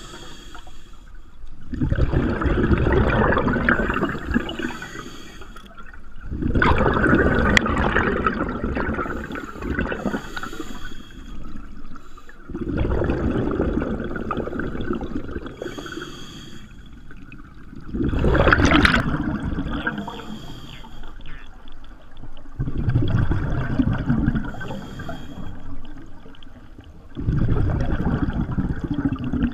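A scuba diver breathing through a regulator underwater: a gush of exhaled bubbles about every five seconds, six in all, each lasting a few seconds, with quieter breaths in between.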